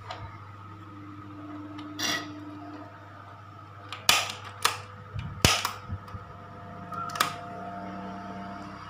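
A handful of sharp clicks and knocks from handling the plastic housing and wiring of an opened food processor while its power cable is swapped, over a steady low hum.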